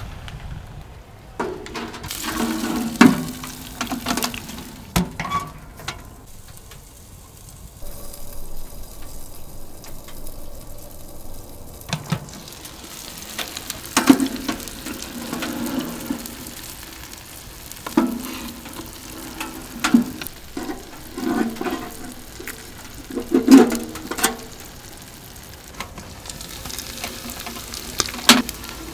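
Food sizzling in a hot pan while a utensil stirs and scrapes it, in bursts every second or two with sharp clicks of metal on metal; a quieter stretch of plain sizzling runs in the first third.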